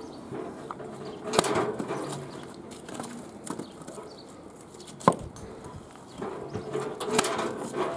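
Three sharp wooden knocks, the loudest about five seconds in, as birch logs are set on the block and split by the blade of a homemade spring-loaded lever log splitter.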